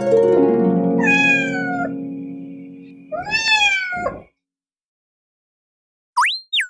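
Two cat meows, about a second in and about three seconds in, over plucked harp-like music that fades out. Near the end come two short rising chirps.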